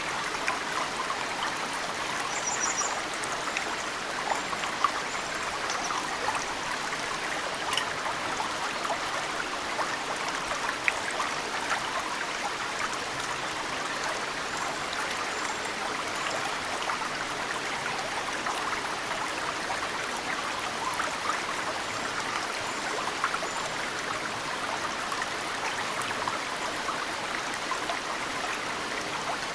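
Mountain stream flowing steadily, with drops of snowmelt falling into the water as sharp plinks every few seconds. Faint high bird chirps come through a few times, clearest about three seconds in.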